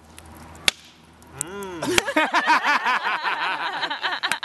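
A campfire crackling with sharp pops, then men start laughing about a second and a half in, a long run of quick bursts of laughter.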